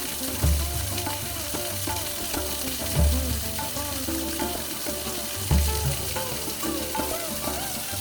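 Background music with a deep bass note about every two and a half seconds under a gently moving melody, over a steady crackling hiss.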